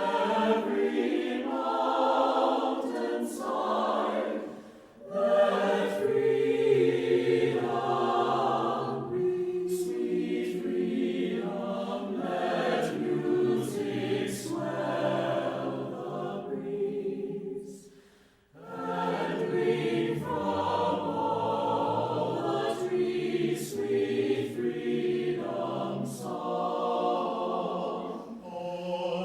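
Choral music: a choir singing held chords. It fades briefly about five seconds in, and drops almost to silence for a moment about eighteen seconds in before the voices return.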